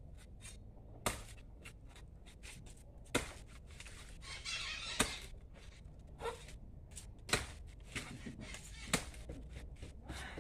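Chickens calling, with five sharp knocks spaced about two seconds apart.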